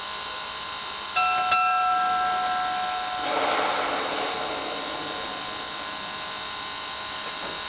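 Steam locomotive whistle, US Army 2-8-0 No. 610's, blowing one steady note for about two seconds, then a hiss of steam that swells and fades away.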